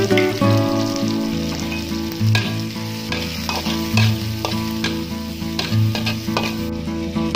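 Shallots and garlic sizzling in hot oil in a metal pan while a spatula stirs them, with repeated scrapes and taps on the pan. Soft background music with plucked notes plays underneath.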